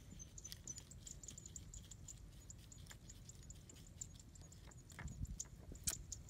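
Faint clinking and scraping of a small metal spoon stirring dipping sauce in a ceramic bowl, with a few sharper clicks near the end.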